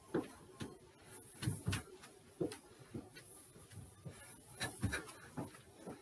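Feet landing in box jumps: irregular soft thuds, a few per second, with some sharper knocks among them.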